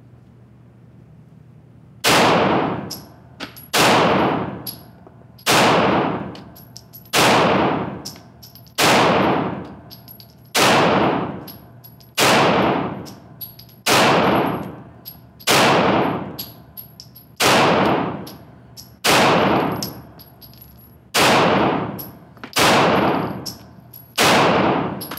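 Pistol shots from a full-size Smith & Wesson M&P M2.0 firing Federal Range and Target ammunition. Fourteen single shots at an even pace, about one every 1.7 seconds, begin about two seconds in. Each shot rings out in the echo of an indoor range.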